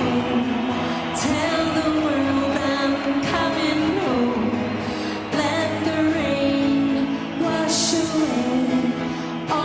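A woman singing live into a microphone, backed by guitar and a band playing a pop song.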